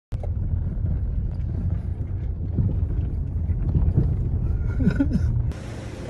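Loud, uneven low rumble of road traffic and wind on the microphone. It cuts off abruptly about five and a half seconds in.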